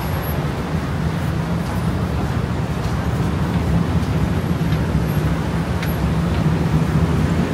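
Steady city traffic rumble from a busy road below, a dense low drone of many engines and tyres that swells slightly near the end.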